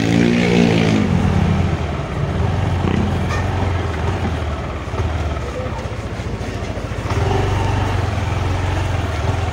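A Yamaha Aerox 155 scooter's single-cylinder engine, heard from the ride. Its revs fall over the first second or so as the throttle closes, then it runs low and steady, picking up slightly about seven seconds in.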